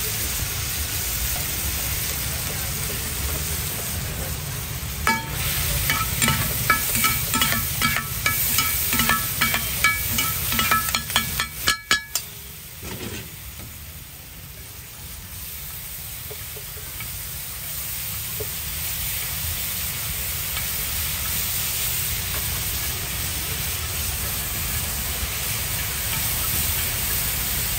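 Chopped tomatoes and masala sizzling on a large flat iron tawa. In the middle stretch, two steel spatulas clink and scrape rapidly against the griddle as the vegetables are chopped and mixed. The clinking stops at about twelve seconds and the steady sizzle carries on.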